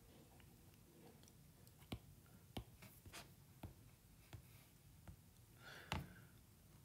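Faint taps and clicks of a stylus on an iPad's glass screen, about half a dozen spread out, the loudest about six seconds in, over near silence.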